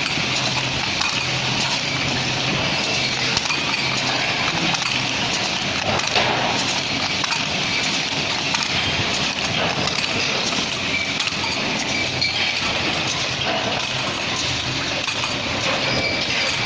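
CNC metal-spinning lathe running, its roller forming sheet metal on the spinning chuck: a steady mechanical noise with a low hum and a continuous high-pitched rasp.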